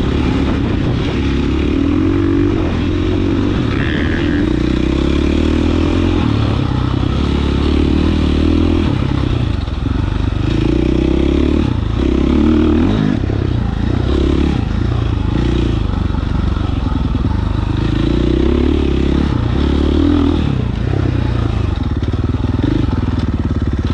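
Single-cylinder four-stroke KTM XC-F dirt bike engine recorded on the bike while riding, with the revs rising and falling over and over as the throttle is worked, and some rattle from the bike.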